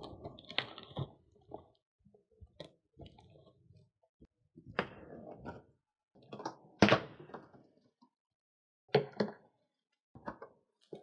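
Box cutter slitting packing tape on a cardboard shipping box, then the cardboard flaps pulled open: scattered scrapes and rustles with a few dull thunks, the loudest about seven seconds in.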